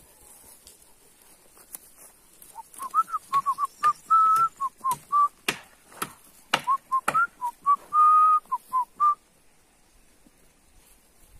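A person whistling a string of short notes, some sliding up or down and a couple held a little longer, with sharp clicks among them. It starts between two and three seconds in and stops about nine seconds in.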